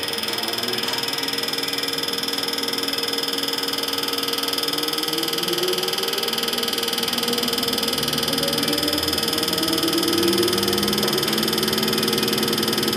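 Diesel injector test bench running, its electric drive motor and high-pressure fuel pump giving a steady high whine, while a lower tone slowly rises in pitch as the drive spins up at the start of the test.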